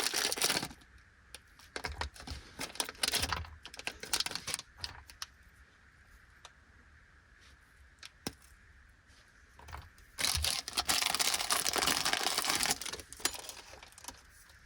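Plastic snack wrappers crinkling and tearing open in two bursts, one at the start and a longer one from about ten seconds in. Scattered light clicks and taps fall in between.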